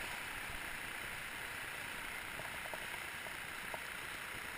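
Steady rushing of whitewater rapids on the river, heard from a raft in the current, with a couple of faint ticks about three seconds in.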